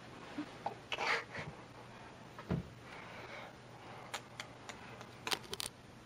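Faint rustling and handling noise from a handheld camera being moved. There is a dull thump about two and a half seconds in and a cluster of short sharp clicks near the end.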